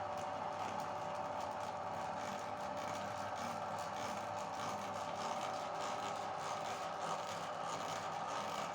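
Electric meat grinder motor running steadily with a constant whine, with faint irregular clicking from the feed.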